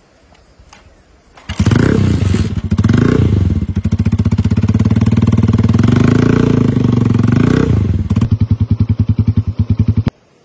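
Motorcycle engine starting up, revved twice, then idling with distinct, evenly spaced firing pulses before it stops abruptly near the end. A few faint clicks come just before it starts.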